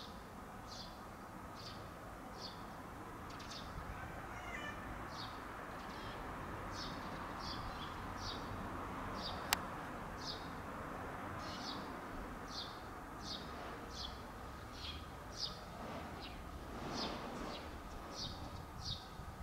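A small bird chirping over and over, short high calls about one or two a second, over steady outdoor background noise, with one sharp click about halfway through.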